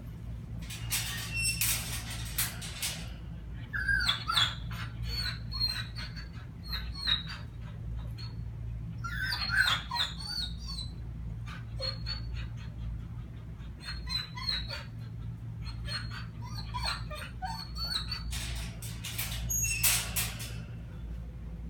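Dog whining in short, high-pitched squeaks and brief rising-and-falling whimpers, with scattered clicks and a couple of rustling stretches, over a steady low hum.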